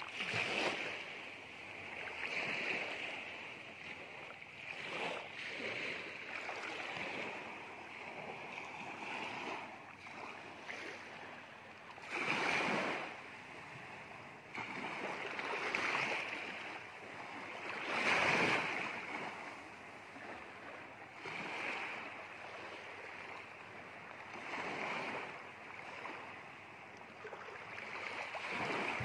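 Small waves washing onto a sandy beach, swelling and falling back every few seconds, with a couple of louder surges.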